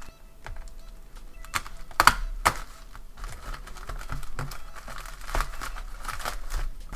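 Plastic poly mailer bag being slit open with a hobby knife and pulled apart by hand: a few sharp clicks and taps in the first half, then plastic crinkling and rustling.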